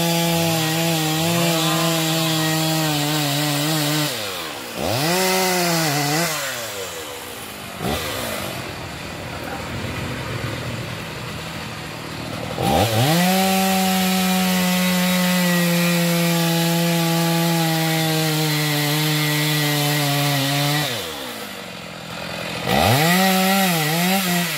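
Two-stroke chainsaw cutting into the trunk of a teak tree, its engine held at a steady high pitch under load. The revs dip and rise again several times, with a quieter stretch of several seconds in the middle.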